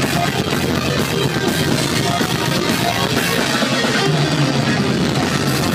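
Live rock band playing loudly, with electric guitars over a drum kit.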